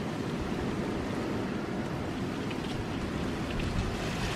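Heavy rain falling steadily on a wet tarmac road and kerb, a continuous even hiss with faint scattered drips.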